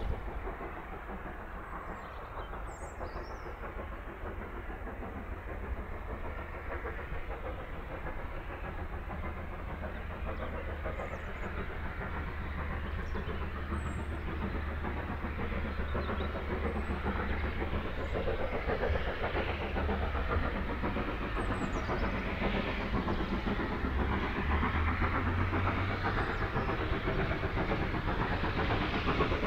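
Great Western 4-6-0 steam locomotive working a train of coaches as it approaches, its exhaust and rumble of wheels growing steadily louder.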